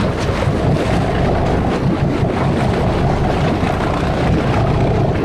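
A charter fishing boat's engine running steadily, with wind buffeting the microphone.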